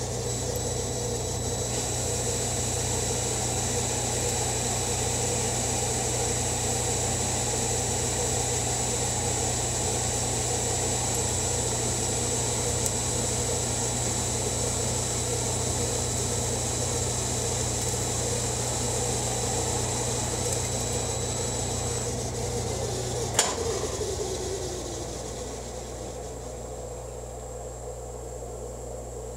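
Hardinge HLV-BK lathe running while its tool takes a finishing cut on a metal spindle: a steady machine hum with a thin high whine. About 23 seconds in there is a sharp click, and the lathe spins down, its pitch falling as it slows.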